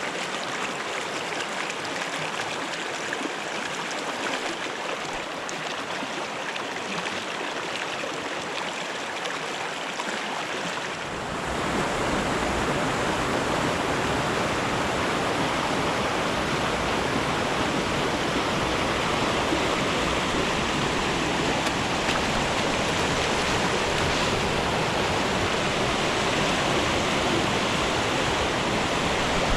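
Small mountain creek's running water, a steady rush that grows louder and fuller about a third of the way in.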